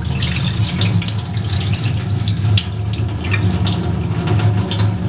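Milky rinse water from washed Japanese rice pouring steadily out of a tilted stainless-steel bowl into a stainless-steel sink.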